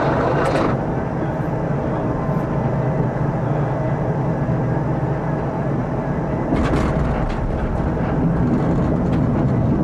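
Prague tram running along its snow-covered track, heard from the driver's cab: a steady low rumble, with a few sharp clicks and rattles about half a second in and again around two-thirds of the way through.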